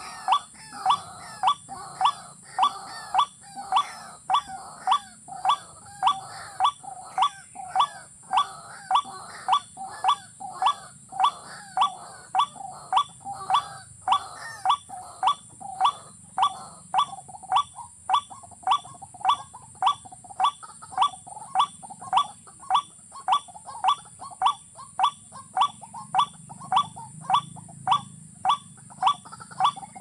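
Watercock calls: a steady, evenly spaced series of short notes, about two a second, kept up without a break, with a steady high hiss beneath.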